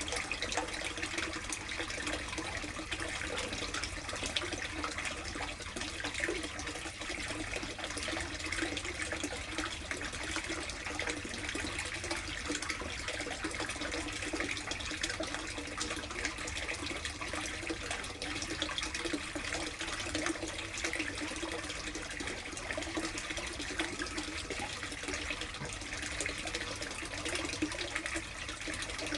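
Steady running and splashing water in a plastic koi tub, even and unbroken.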